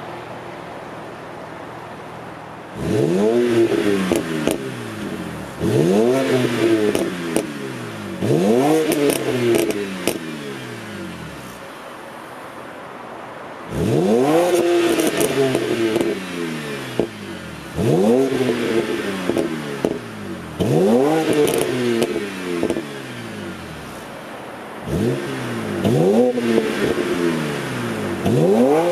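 BMW 330i E92's straight-six exhaust, stock system, blipped from idle about eight times: each rev climbs sharply and falls back. Crackles and pops on the overrun as the revs drop.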